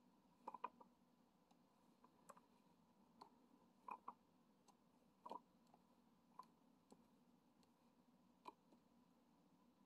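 Faint, irregular small clicks and taps of diamond painting: resin drills being picked up with a drill pen and pressed onto the canvas, about one or two clicks a second over a quiet room hum.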